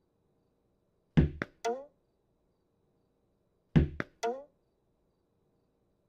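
Tennis ball thrown against a wall, heard twice. Each throw is a loud thump, then a quick sharp knock, then a short ringing, pitched knock, and the pattern repeats about every two and a half seconds.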